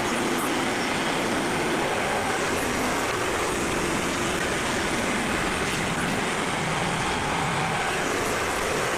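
Frontier OS27 portable band sawmill running with an even, unchanging machine noise.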